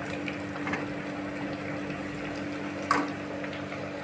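Sliced onions sizzling steadily as they deep-fry in hot oil in a kadhai, with a single short knock of the slotted metal spoon against the pan about three seconds in.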